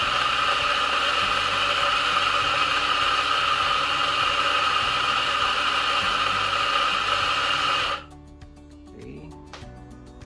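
DF64E 64 mm flat-burr coffee grinder grinding espresso beans on a programmed 9-second electronic timed dose: a steady, loud motor-and-burr whine. It cuts off abruptly about eight seconds in as the timer ends, leaving faint background music.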